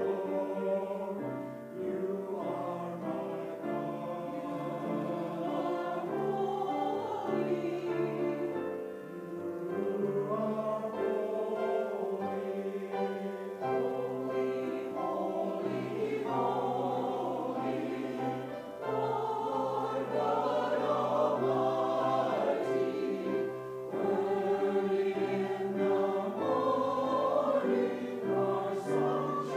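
A choir singing a sacred piece, with held chords that change every second or two.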